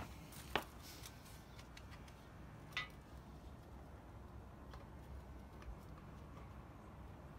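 Light metal-on-metal handling sounds as a bearing-installer tool is set into a balance-shaft bore of a 4G63T engine block. There is a sharp click about half a second in, a brief ringing clink near three seconds, then a few fainter ticks.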